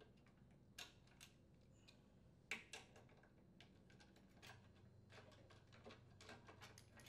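Near silence broken by faint, scattered clicks and ticks of a nut driver and metal parts as the carburetor mounting bolts are unscrewed and the carburetor is worked loose from a small engine. The most distinct click comes about two and a half seconds in, with a run of small ticks in the second half.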